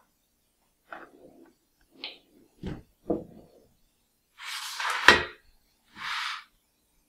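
Kitchenware handled on a countertop: a few light knocks and clinks as small bowls are moved, then a metal baking pan scraping across the counter, with a sharp clack about five seconds in and a shorter scrape near the end.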